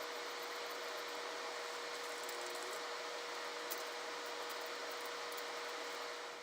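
Faint steady hiss with a constant hum tone and a few faint ticks: steady background room noise.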